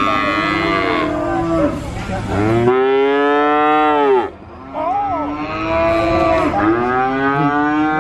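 Young calf bawling: three long calls, each rising and then falling in pitch, with the loudest in the middle.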